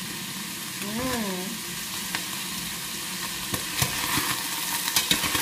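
Ground beef with carrots sizzling in a stainless steel pot, nearly cooked, as a spatula stirs it. In the second half the spatula knocks and scrapes against the pot with several sharp clicks.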